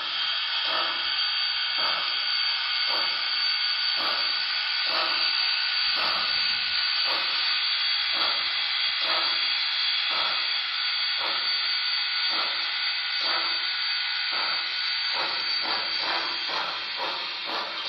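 Broadway Limited HO-scale PRR H10 steam locomotive's Paragon 2 sound decoder playing steam chuffs over a steady hiss through the model's small onboard speaker as it runs slowly. The chuffs come about one and a half a second and quicken near the end.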